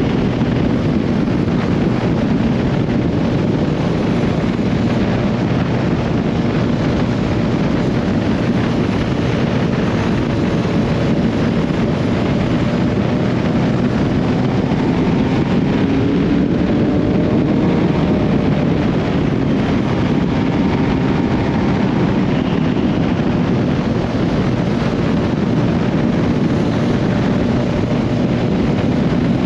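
Honda CB1300SB's inline-four engine running at a steady cruising speed under heavy wind rush on the microphone, its note rising a little about halfway through.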